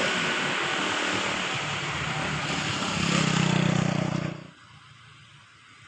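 Road vehicle running close by: engine hum and road noise, the engine hum growing stronger about three seconds in before the sound drops away sharply, leaving faint background traffic.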